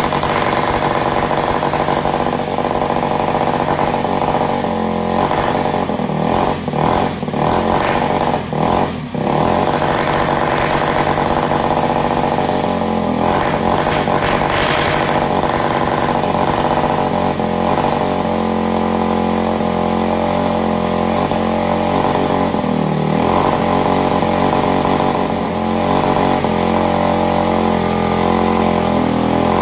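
Supercharged engine of a quarter-scale RC car running flat out in a bench burnout with the rear wheels spinning, held at steady high revs against a rev limiter set at only 5000 rpm. The run is blowing the wool packing out of its muffler.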